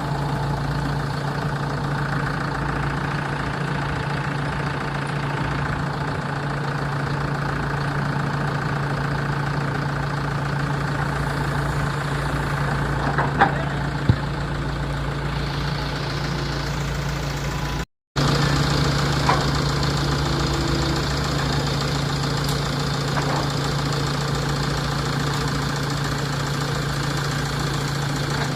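Heavy machine's diesel engine running steadily at a low idle-like pace. Two sharp knocks come about halfway through, and the sound briefly drops out shortly after.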